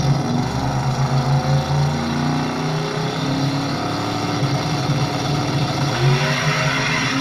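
Drag race car launching at full throttle and running down the strip, its engine note rising in pitch as it pulls away.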